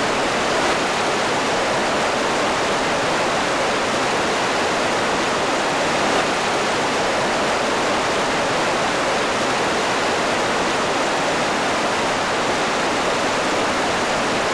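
Steady rushing of a shallow rocky river, the Big Thompson, running over boulders in riffles, an even unbroken hiss of water.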